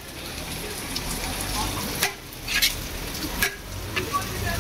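Perforated metal ladle scooping and stirring biryani rice in a large aluminium pot, the rice rustling steadily, with several sharp clinks of metal on metal in the second half.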